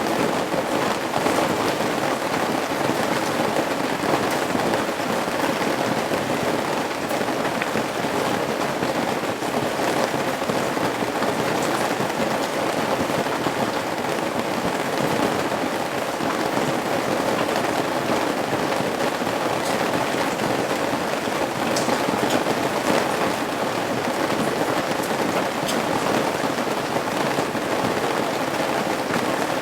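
Steady rain pattering on a roof's eaves, a dense even hiss with many sharp drop ticks scattered through it.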